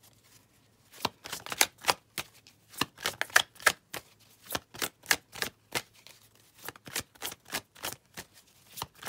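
A tarot deck being shuffled by hand: a run of quick, sharp card clicks and flicks, several a second, starting about a second in.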